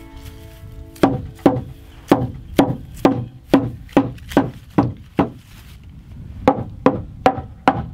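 Hammer striking a treated lumber board, knocking it under the base of a pallet wall: about a dozen sharp wooden blows, roughly two a second, with a short pause midway.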